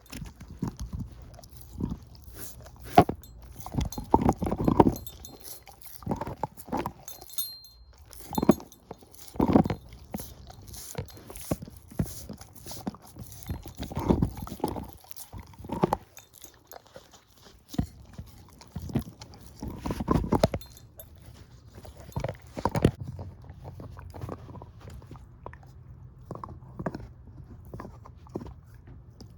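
Shepherd-mix dog chewing and crunching a bone, with irregular loud crunches and gnawing that thin out to softer, sparser chews after about 23 seconds.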